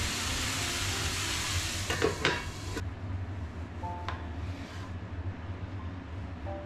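Food sizzling in a frying pan, with a few clatters of a utensil against the pan about two seconds in. The sizzle cuts off abruptly just under three seconds in, leaving a quieter stretch with a single click about a second later.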